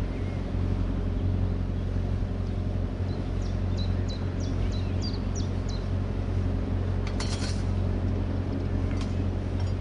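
Canal boat's inboard engine running steadily at cruising speed, a low even hum. A brief clinking rattle about seven seconds in, with a few short high chirps a little before it.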